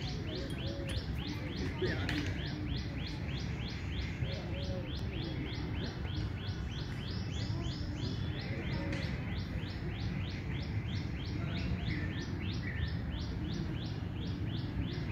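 Bird calling continuously in a fast, even series of short high notes that each sweep downward, about four a second, with a few fainter lower bird calls and a steady low background rumble.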